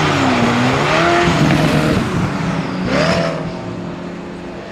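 Zenvo TSR-S's 5.8-litre V8, both supercharged and turbocharged, revving as the car accelerates: the engine pitch dips and climbs about a second in, climbs sharply again near three seconds in, then the sound fades as the car pulls away.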